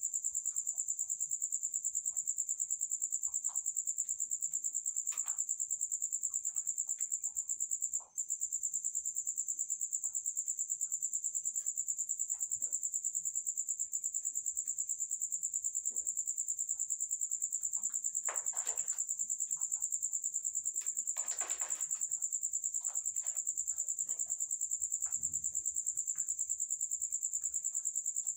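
Crickets chirping in a steady, rapidly pulsing high-pitched trill, with two brief rustles about two-thirds of the way through.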